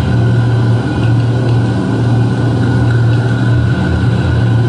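Dark ambient noise drone played live on laptop and synthesizers through a PA: a loud, steady, heavy low hum with a thin, steady higher tone above it.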